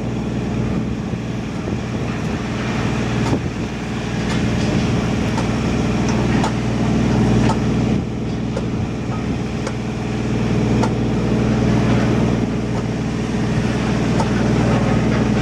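Heavy demolition machinery running steadily, its engine holding an even note, with scattered knocks and clatter of material being broken.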